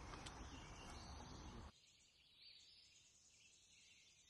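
Near silence: faint background hiss that cuts off abruptly a little under two seconds in, leaving only faint high-pitched sounds.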